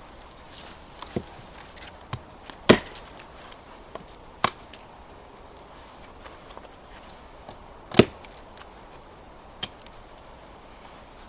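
A series of irregularly spaced sharp knocks, about six strikes, the loudest a little under three seconds in and again about eight seconds in, with smaller clicks between.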